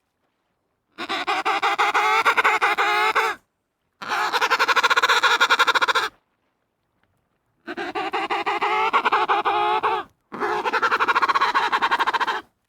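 Penguin calling four times, each call a rapidly pulsing, buzzy cry about two seconds long, with silent gaps between them.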